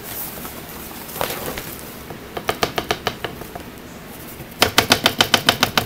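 Cardboard subscription box being torn open: two runs of rapid, evenly spaced clicks, about eight to ten a second, the second run louder near the end.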